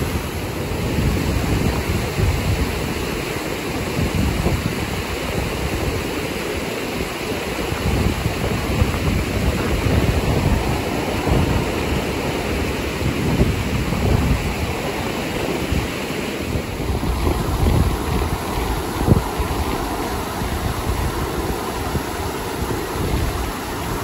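A rain-swollen stream rushing over a low weir and through rapids in a steady wash of water noise, with wind buffeting the microphone in uneven low rumbles.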